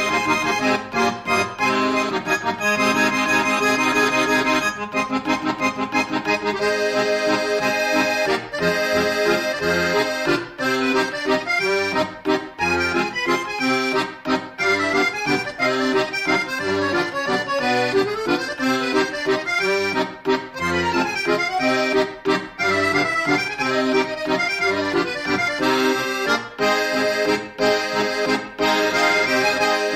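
Instrumental background music: a busy melody of quick notes over a steady accompaniment.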